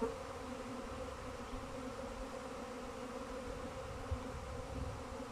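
Honeybee swarm in flight, a steady buzzing hum of many bees in the air as the swarm begins to settle onto a frame held up for it.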